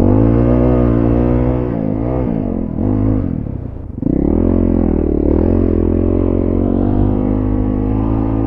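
Honda CRF450RL's single-cylinder four-stroke engine under way on a dirt track, its pitch dipping and rising a few times with the throttle. It drops off sharply just before four seconds in, then picks up and pulls steadily again.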